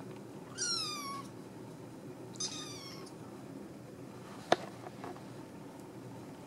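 A black kitten about six and a half weeks old mewing twice, two short high calls that fall in pitch. A sharp click follows about four and a half seconds in, with a fainter one just after.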